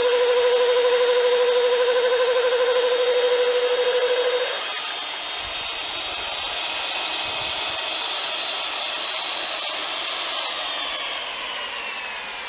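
Pulvex diamond core drill running with a steady whine. About four and a half seconds in the sound changes and gets quieter, and near the end a high tone falls in pitch as the motor slows.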